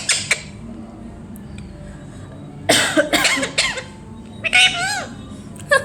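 Pet parrot giving loud, harsh calls in short clusters: a couple at the start, a run of several about three seconds in, another about four and a half seconds in, and a brief one near the end.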